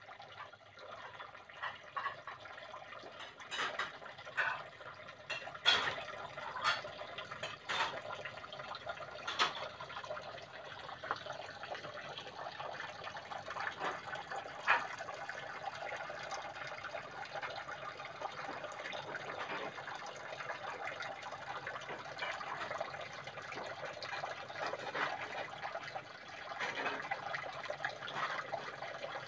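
Water running into a small garden fish pond: a steady trickle and splash, with a few sharper splashes in the first ten seconds.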